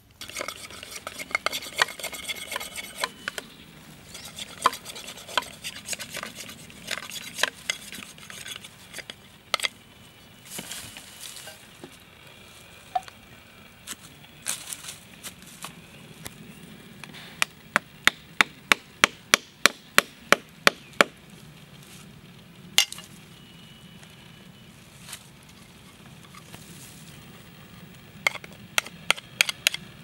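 A knife cutting and scraping green bamboo: scattered cuts and knocks, with a fast run of about a dozen sharp chops, roughly three a second, past the middle, and another short run near the end.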